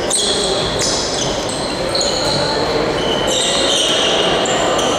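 Indoor handball play in an echoing sports hall: several short, high-pitched squeaks from players' shoes on the gym floor overlap one another, over a steady din of the hall, with a handball bouncing.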